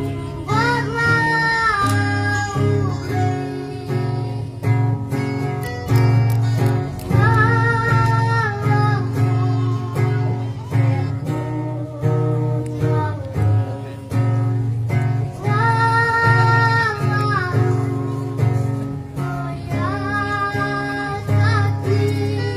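A boy singing a Khasi song in a high voice, with long held phrases every few seconds, accompanied by a strummed acoustic guitar and an electric guitar.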